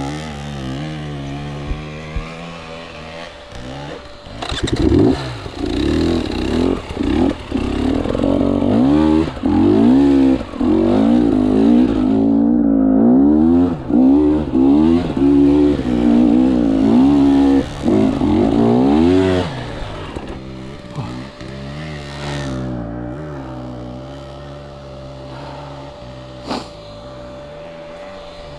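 KTM 300 two-stroke enduro motorcycle engine revved in repeated short throttle bursts for about fifteen seconds while climbing, then settling to a lower, steadier run. A single sharp click comes near the end.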